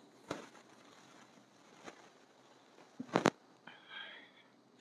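A few light knocks and clicks from handling whiteboard markers and the eraser, the loudest a quick double knock about three seconds in, followed by a brief soft rustle.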